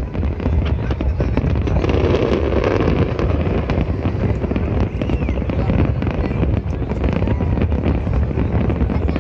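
Large fireworks display going off without pause: a dense run of sharp bangs and crackles over a constant low rumble of shells bursting.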